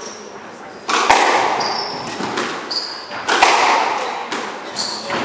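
Squash rally: the ball cracking off rackets and the walls about once a second, each hit echoing around the court, with short high squeaks of shoes on the wooden floor between the shots.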